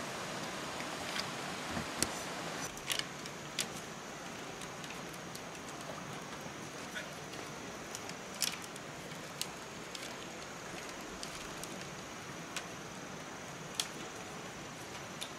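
Scattered sharp clicks and knocks of bamboo poles and battens being handled, tied and climbed on, over a steady hiss.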